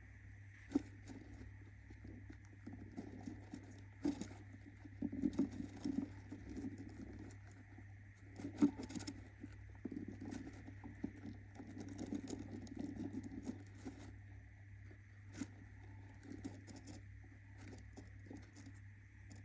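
Budgie shifting about in its nest box: irregular light scratching, tapping and rustling, with a few sharper clicks, over a steady low hum.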